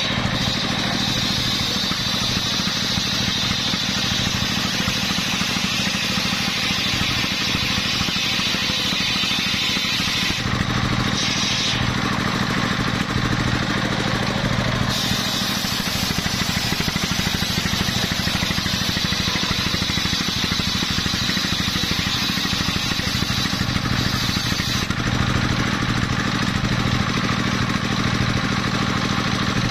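Engine-driven circular saw of a mobile sawmill ripping coconut-palm wood, the engine running steadily under load. The high cutting noise shifts several times, about ten, fifteen and twenty-five seconds in, as the wood is fed through the blade.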